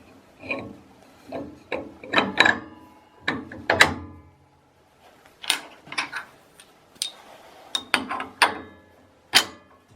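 Sharp metal clanks and clicks, some ringing briefly, as a table saw blade is fitted back onto the saw's arbor; a dozen or so irregular knocks, the loudest near the middle.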